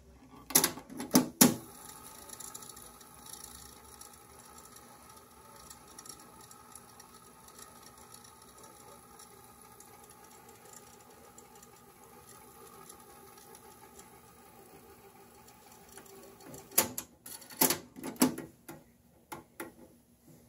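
Yamaha KX-400U cassette deck: a few loud clicks as its transport buttons are pressed about half a second in, then the tape mechanism running with a steady whir. Another cluster of clicks and knocks comes near the end.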